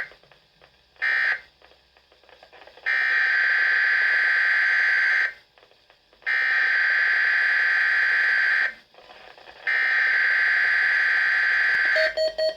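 Weatheradio Canada SAME digital alert data bursts, heard as harsh buzzing data tones. About a second in comes the last of three short end-of-message bursts. Then three longer header bursts of about two and a half seconds each, a second apart, open the next alert.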